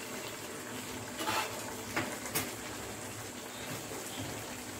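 A spoon stirring thick chicken curry in an earthenware pot, with a few short scrapes and knocks against the pot over a steady hiss.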